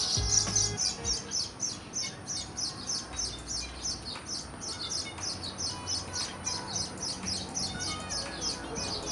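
Weaver bird chirping in a rapid, even series of short high chirps, about four or five a second.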